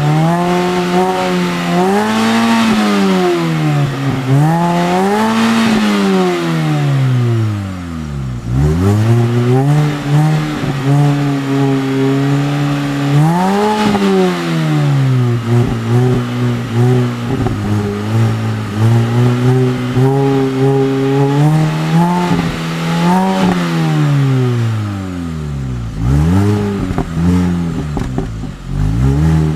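Mini Cooper S four-cylinder engine being revved repeatedly, its pitch climbing and falling in a series of blips and short holds. It drops back to a low idle about a third of the way in and again near the end.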